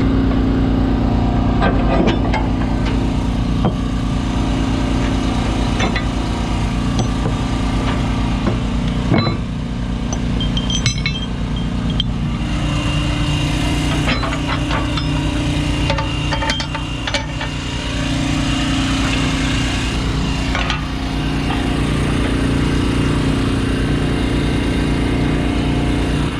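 Diesel engine of a semi tractor idling steadily, its note rising slightly about halfway through, with a few sharp knocks about a third of the way in.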